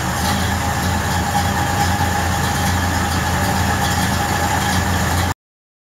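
Ford Model A truck engine idling steadily, a low even hum, which cuts off suddenly near the end.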